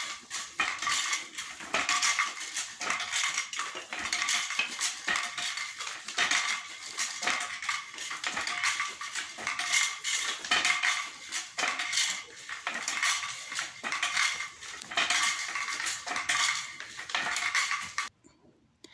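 Wooden treadle floor loom being worked in weaving: a dense, repeated clatter of wooden knocks and clicks from the beater, treadles and heddles, coming in bursts. It cuts off suddenly near the end.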